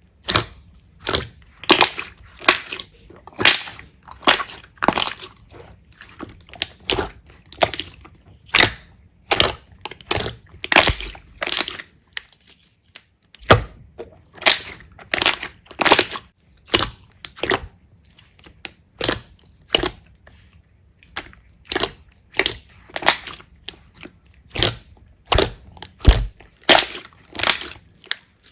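Slime being squeezed and pressed by hand, giving a steady run of short crackling, crunchy pops about one to two a second, with a brief pause about halfway through.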